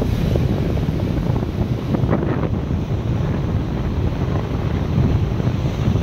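Sea surf washing and breaking over shoreline rocks, with heavy wind rumble on the microphone. A brief hissier surge of foaming water comes about two seconds in.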